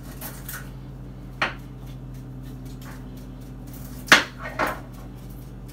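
A few sharp clicks and knocks of spice containers being handled and set down on a kitchen counter, the loudest about four seconds in, over a steady low hum.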